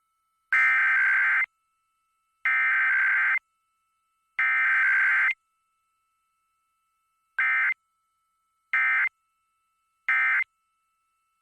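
Emergency Alert System SAME digital data bursts, the buzzy screech of the EAS encoder: three header bursts of about a second each, about a second apart, then after a pause three short end-of-message bursts. No attention tone comes between them, as in a Required Weekly Test.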